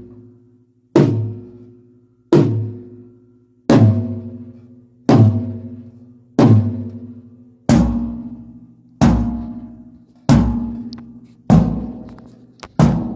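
A tom-tom on a drum kit struck with single strokes for a sound check, one hit about every 1.3 seconds. Each stroke is left to ring out with its pitch before the next.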